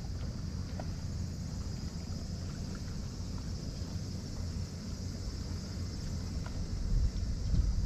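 Wind rumbling on the microphone, with a steady high-pitched chirring of insects behind it.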